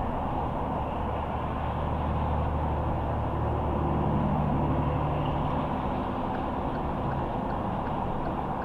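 Car driving on a highway: steady tyre and road noise, with a low engine hum that swells in the middle and fades near the end.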